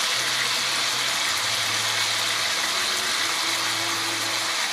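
Chicken breasts sizzling in a pan of pan juices, a steady hiss, with a low steady hum underneath.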